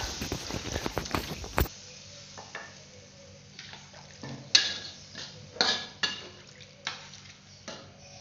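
Water poured into a hot wok of frying aromatics hisses and sizzles with crackling, then stops abruptly about a second and a half in. After that a metal spatula scrapes and stirs against the wok in several short strokes.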